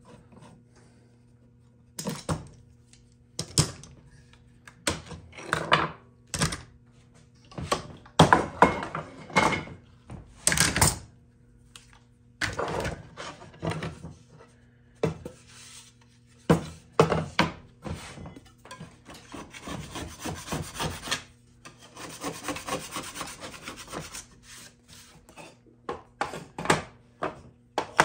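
Wooden parts being handled on a wooden workbench: irregular knocks and scrapes of wood on wood, with two longer stretches of rubbing or scraping past the middle.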